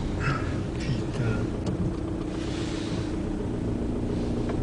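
Steady engine and road rumble heard inside a car driving on a motorway, with a low even hum.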